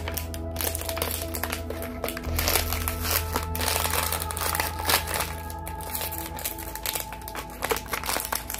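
A puppy chewing an empty plastic water bottle: irregular crackling and crunching of the plastic, heaviest in the middle stretch, over background music.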